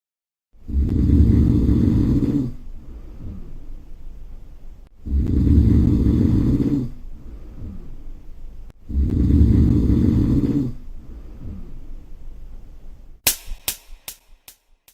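A person snoring: three loud rumbling inward snores about four seconds apart, each followed by a quieter, longer breath out. Near the end, a quick run of sharp clicks that come faster and fade out.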